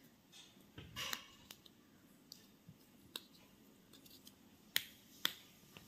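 A handful of short, sharp clicks and light taps from small objects being handled, with long quiet gaps between them. The two loudest come near the end, about half a second apart.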